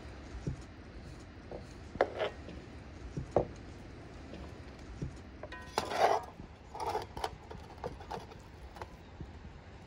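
Scattered light knocks of glasses and tableware on a wooden table, then crackling crunches, loudest just past the middle, as a knife cuts through the crisp pastry crust of a lamb and potato pie in a metal pan.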